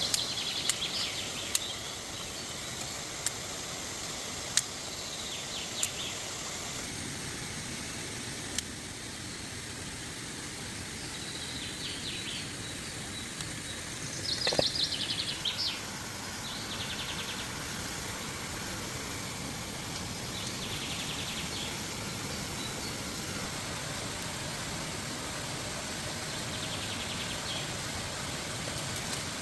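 Steady rush of a waterfall and river, with a bird chirping in short trilled bursts every few seconds; the loudest burst comes about halfway through. A few sharp clicks sound in the first several seconds.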